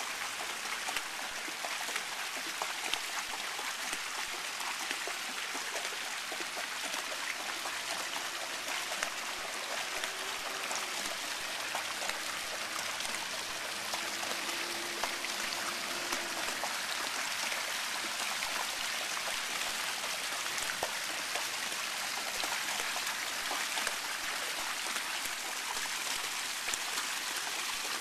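Steady splashing and trickling of shallow fountain water, with many small splashes as a Samoyed wades through it on its paws.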